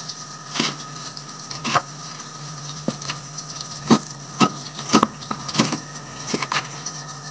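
Kitchen knife dicing a peeled raw potato on a wooden cutting board: uneven sharp knocks of the blade striking the board, over a steady background hum.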